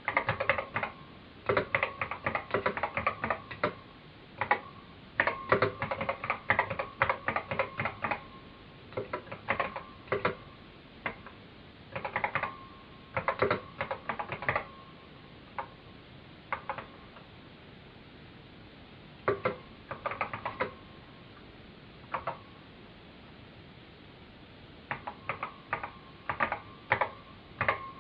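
Typing on a computer keyboard: irregular runs of rapid key clicks with pauses of a few seconds between them.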